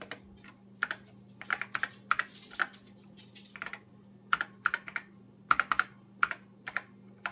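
Typing on an Apple II computer keyboard: irregular keystrokes, single and in quick runs of two or three, as a command is keyed in. A steady low hum runs underneath.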